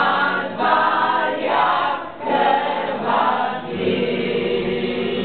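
A group of people singing together without accompaniment, in phrases of a second or more with short breaks between them.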